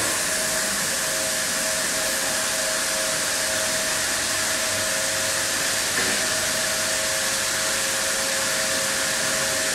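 Automatic rug washing machine running its rinse cycle: a loud, steady hiss with a constant whine from the machine.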